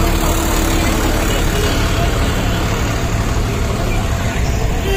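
Road traffic: car and auto-rickshaw engines running, a steady low rumble with no break.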